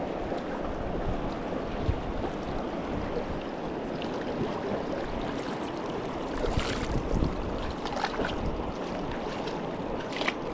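Shallow river flowing over cobbles in a steady rush around wading legs, with a few brief splashes about six to seven seconds in and again near the end.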